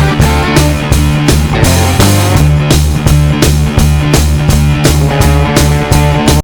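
Background rock music with a driving drum-kit beat, bass and guitar.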